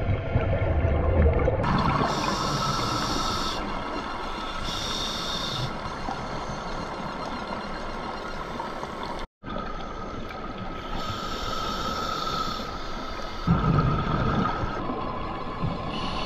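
A scuba diver breathing through a regulator, heard underwater: hissing inhalations that come and go for a second or two, and low rumbling bursts of exhaled bubbles, over a steady underwater hum. The sound cuts out for a moment about nine seconds in.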